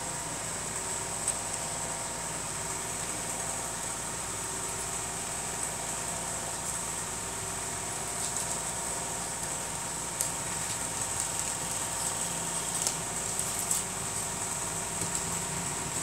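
Steady mechanical hum and hiss, with faint scattered taps and scuffles in the second half from puppies wrestling on a wooden floor and rug.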